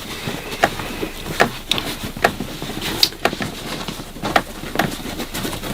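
Groceries being packed into a bag: rustling with scattered light knocks and clicks as items are handled and set down.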